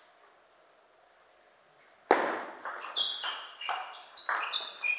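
Table tennis rally: after a short quiet pause, the celluloid ball starts clicking off the rackets and bouncing on the table about two seconds in, two or three sharp clicks a second, the first hit the loudest.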